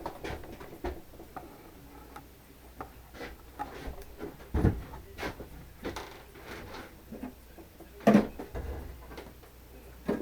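Scattered clicks and knocks of objects being handled and set down on a work surface, with louder knocks about four and a half and eight seconds in.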